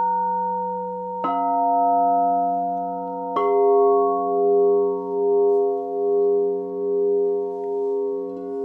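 Singing bowls struck twice, about one and three and a half seconds in. Each strike adds its own set of ringing tones over those still sounding from before. The overlapping tones sustain with a slow, even wavering in loudness.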